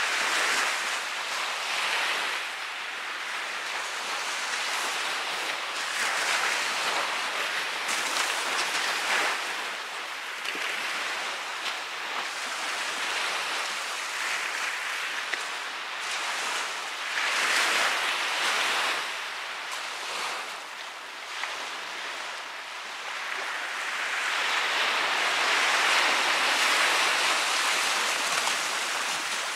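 Small ocean surf breaking and washing up a sandy beach. The hiss of each wave swells and fades every few seconds, with the longest and loudest wash near the end.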